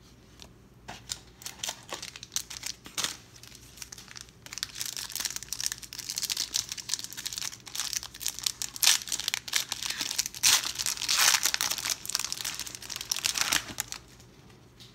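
Shiny foil wrapper of a 1992 Pro Set football card pack crinkling and tearing as it is opened by hand. A few scattered crackles at first, then dense, loud crinkling from about four seconds in that stops shortly before the end.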